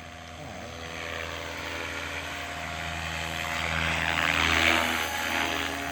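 Goblin 380 electric RC helicopter in flight: steady motor whine under the rush of its spinning rotor blades, growing louder to a peak about four and a half seconds in, then easing off as it passes.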